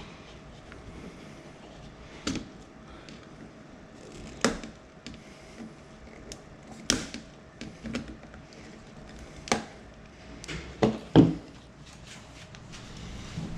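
Irregular light clicks and taps of small hand tools working on a tablet's back case, about a dozen over the stretch, the loudest a pair of sharp knocks about eleven seconds in.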